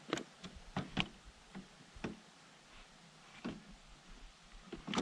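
Irregular hard plastic clicks and knocks from the grass collector box being pushed and fitted into the rear hatch of a battery lawnmower, with the motor not running.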